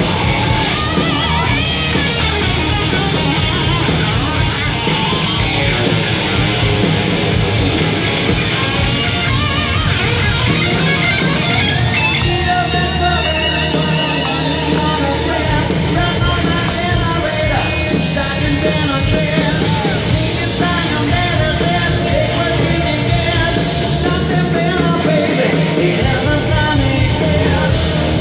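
A rock band playing live: electric guitar and drums, with a singer's voice over them, loud and unbroken.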